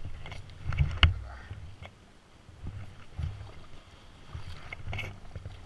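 Knocks and bumps as a person climbs onto a moored stand-up jet ski from a wooden dock, the sharpest knock about a second in, with an uneven low rumble underneath. The engine is not running.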